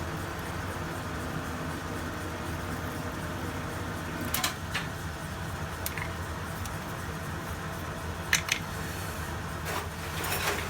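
Metal lathe running steadily while single-point threading an M12 × 1.75 thread, with a few short sharp clicks in the second half.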